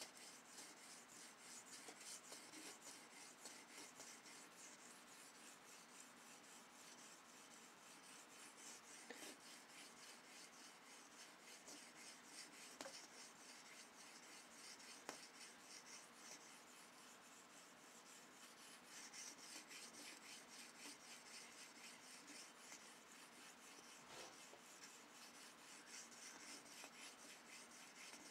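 A steel knife blade (154CM) being stroked over and over across an oiled sharpening stone: a quiet, steady run of light, quick rasping strokes.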